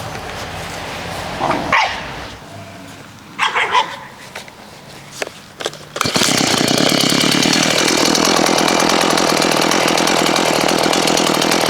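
A few short, sharp sounds, then about six seconds in a two-stroke gasoline chainsaw starts up and runs loud and steady at high revs.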